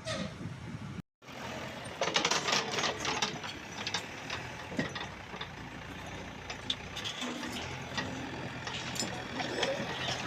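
An engine running steadily, with scattered knocks and clicks over it. The sound cuts out completely for a moment about a second in.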